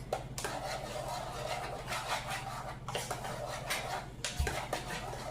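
A utensil knocking and scraping against a pot, several clicks and clinks with a sharper knock near the end, over a steady low hum.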